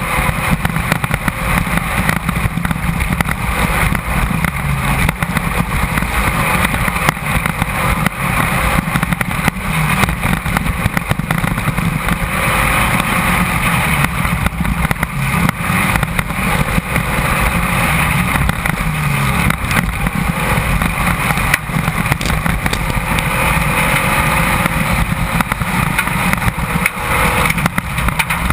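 Class 1600 desert race car running hard, heard from its onboard camera: a constant engine and wind din with frequent knocks and rattles from the chassis over rough ground.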